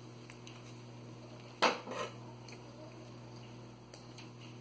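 Steel scissors clinking as they are picked up off a hard table: one sharp clink about a second and a half in, a smaller one just after, amid quiet handling of ribbon and thread.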